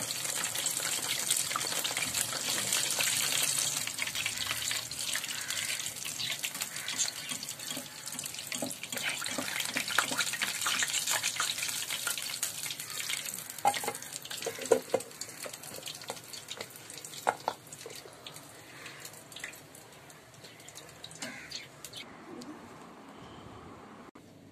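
Cheese triangles deep-frying in hot oil: a dense sizzling and crackling hiss that gradually dies down. A few sharp knocks come about two-thirds of the way through.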